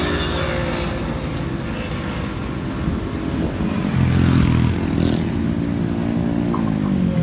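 Passing street traffic: motorbike and car engines running close by, loudest about four seconds in, with one engine dropping in pitch as it goes past near the end.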